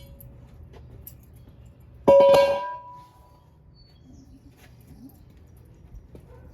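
A single loud metallic clang about two seconds in, ringing with clear tones that fade over about a second, as a metal object is knocked or set down. The rest is quiet room noise.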